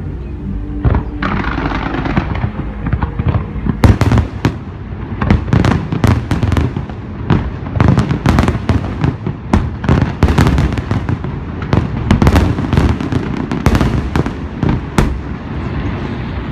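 Aerial firework shells bursting in a dense, rapid barrage: many overlapping sharp bangs with no pause between them, growing sharper and thicker about four seconds in.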